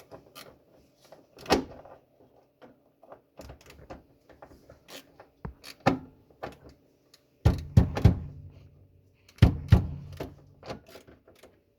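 Hand tools clicking and knocking against metal as a socket is worked onto a glued-in bolt, with scattered light clicks and two louder clusters of knocks about seven and a half and nine and a half seconds in.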